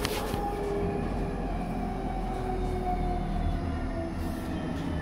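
Tram running along its track, heard from inside the car: a steady rumble of wheels on rails with a faint whine that slowly falls in pitch, and a couple of light clicks near the start and the end.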